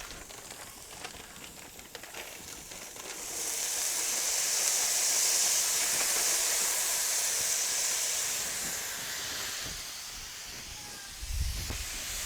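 Frozen mixed vegetables hitting a hot Blackstone griddle: after a few light clicks, a loud, steady steam hiss and sizzle starts about three seconds in as the frozen vegetables meet the hot oiled steel, easing off after about nine seconds. A short low thump comes near the end.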